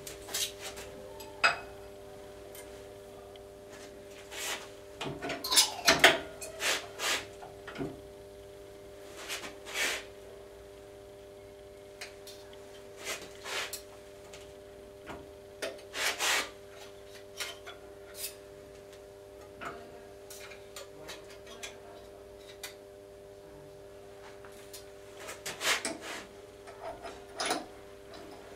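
Irregular metal clanks, knocks and scraping as a workpiece and vice on a workshop machine are handled and adjusted by hand, in clusters with pauses between. Under them runs a steady low hum.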